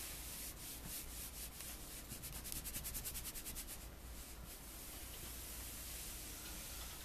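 An iron fitted with a non-stick shoe guard slides back and forth over a shirt: a run of quick rubbing strokes that starts about half a second in, is fastest in the middle and stops about five seconds in.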